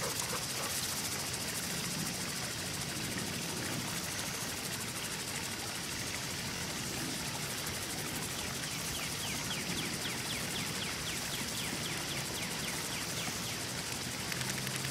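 Steady outdoor background hiss with no distinct events. About two-thirds of the way through, a faint, quick series of high chirps comes and goes, about four a second.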